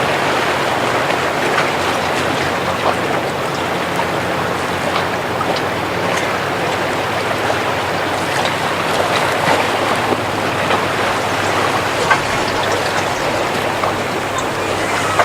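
Water rushing and splashing with a steady low boat-engine hum beneath it, full of small crackles.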